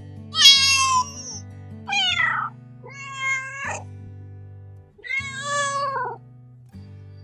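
A cat meowing four times, each call a short bending wail, over soft background music.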